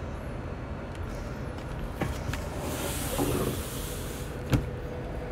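Handling noise as the camera is moved and set down: a light click, a short rustling hiss, then a sharper knock near the end, over a steady low room hum.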